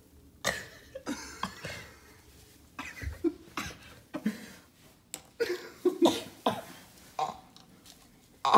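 A person's short throaty vocal sounds, coughs and grunts, coming in irregular bursts about every half second to a second.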